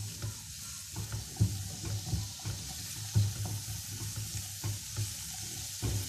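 Chopped carrot, capsicum and cabbage sizzling in oil in a frying pan as they are stir-fried, with a steady hiss and irregular soft knocks and scrapes of the spatula against the pan.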